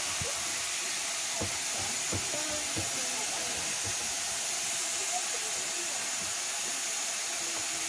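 Steam locomotive hissing steadily, a continuous hiss of escaping steam, with faint voices in the background.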